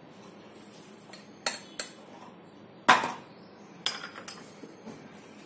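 Steel spoon clinking against a mug and small plastic bowls as instant coffee and sugar are spooned in: five or so short knocks, the loudest about three seconds in.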